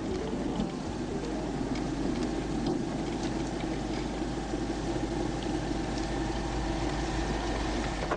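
Car engine and road noise heard from inside the cabin of a moving car, a steady drone.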